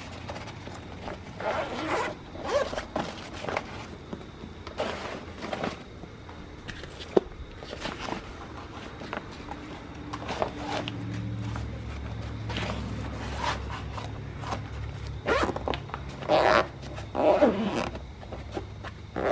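Zippers on a Topeak MTX Trunk Bag DXP pannier pulled open and shut in a series of short runs, with a sharp click about seven seconds in. A low steady hum sets in about halfway through.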